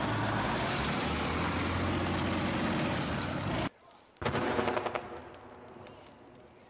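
A tracked armoured vehicle's engine and tracks running loudly. After a sudden cut, a burst of gunshots that fade away over the next two seconds.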